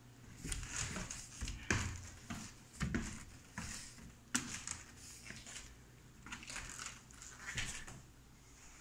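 Footsteps climbing steep open-tread stairs: a dull knock about every half second for the first four seconds or so, then softer scuffing and rustling.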